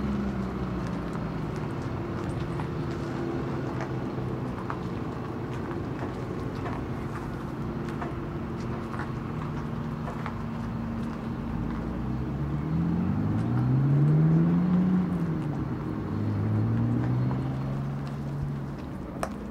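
ZF Innovation Truck, a 25.25 m truck-and-trailer combination, running as it manoeuvres slowly. Its drive note holds steady at first, then rises and falls in pitch about two-thirds of the way in and rises again near the end.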